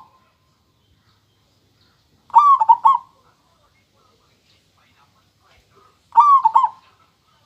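Zebra dove (perkutut) cooing: two short phrases of quick, clear notes about four seconds apart, with the end of another phrase right at the start.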